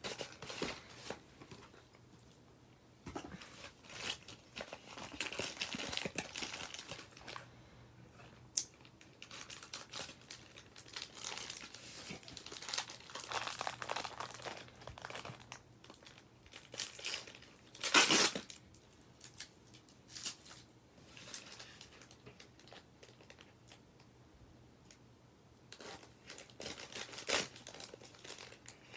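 Plastic and cardboard toy packaging being handled and opened: irregular crinkling and rustling with some tearing, and one sharper, louder crackle about eighteen seconds in.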